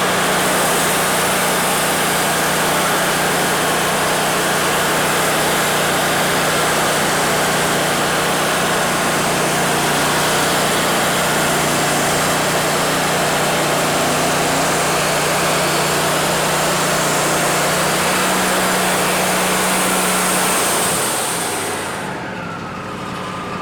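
Wood-Mizer LT40 band sawmill running under load, its band blade cutting through a cedar log: a steady engine drone under a dense, loud cutting hiss. Near the end the cutting hiss falls away as the blade comes out of the log, and the engine keeps running.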